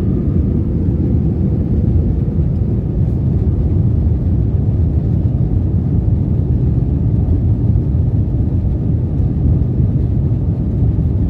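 Steady cabin noise inside a jet airliner climbing out after takeoff: a low, even drone of the jet engines and rushing air.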